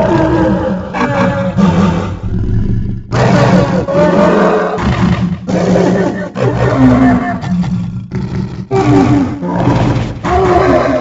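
A series of dinosaur roar sound effects played one after another, each a second or two long with a bending pitch, and sudden cuts between them.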